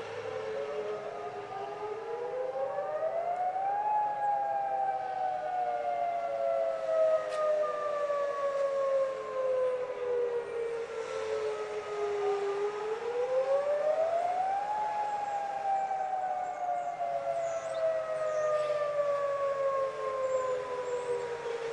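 Distant tsunami warning sirens sounding a wail. Each cycle rises quickly over about two seconds, then falls slowly over about eight, and repeats roughly every eleven seconds. More than one siren is heard, a little out of step with each other.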